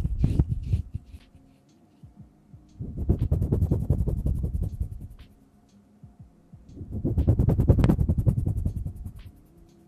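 Hands rubbing and fingertips fluttering right up against a stereo recorder's microphones, making fast, even brushing strokes. There are two long runs, one about three seconds in and one about seven seconds in, and a short burst at the very start.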